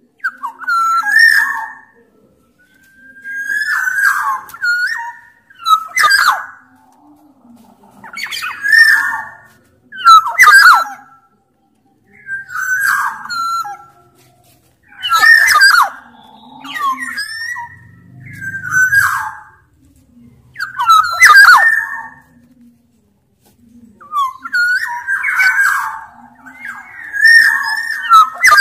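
Black-naped oriole (kepodang), Sumbawa form, singing loudly. Short whistled and harsh phrases repeat about every two seconds, roughly a dozen in all.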